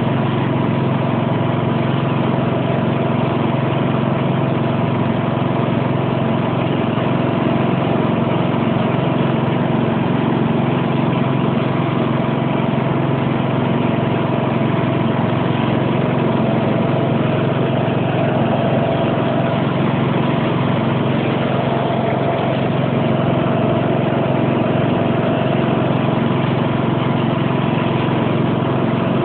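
Sentinel garden tractor's engine running steadily at a constant speed.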